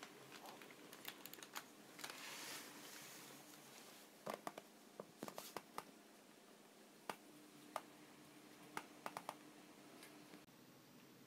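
Sheets of handmade paper being unfolded: a soft rustle, then scattered sharp crackles and clicks from the folds, some in quick runs of three or four.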